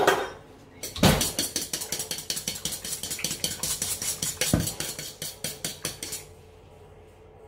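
A fork beating an egg in a stainless steel bowl: quick, regular clinks of the tines against the metal, several a second, stopping about six seconds in.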